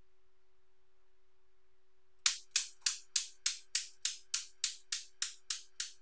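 Steel balls of a Newton's cradle clicking against each other, starting about two seconds in: sharp, evenly spaced clicks about three a second, slowly getting quieter as the swing dies down.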